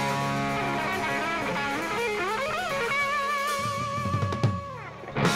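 Live rock band playing: a lead line, which PANN takes for electric guitar, bends upward and then holds one long note with vibrato over the drums. A drum fill follows, with a loud crash hit near the end.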